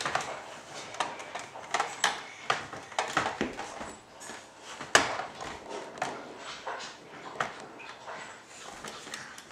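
Baby swing being shoved and tipped about by a toddler on a wooden floor: irregular knocks, clacks and rattles of its frame, with one louder knock about five seconds in.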